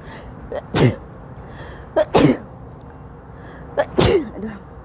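A woman sneezing three times, about a second and a half apart, each sneeze preceded by a quick intake of breath.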